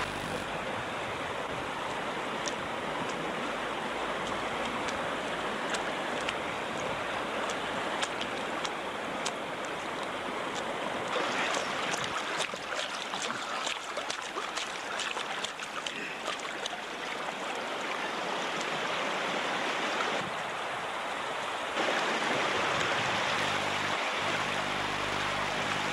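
Water splashing and running: a steady watery noise with small splashes scattered through it, changing in character a couple of times along the way.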